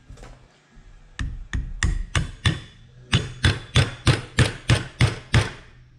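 Hammer striking a socket to drive a new bearing into the bore of a Peerless 1050 mower-deck gearbox housing. It makes sharp metal-on-metal taps, about sixteen in all, starting about a second in at roughly three a second, with a short pause about halfway.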